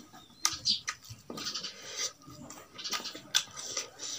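Wet chewing and lip smacking of a mouthful of rice and meat, with irregular sharp clicks. Fingers scrape and tap against a steel plate while mixing rice by hand.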